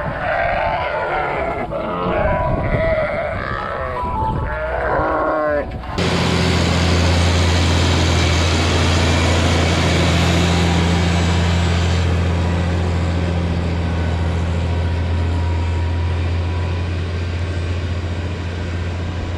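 Sheep bleating, several calls overlapping. About six seconds in, this cuts abruptly to a steady, low engine-like drone that holds even to the end.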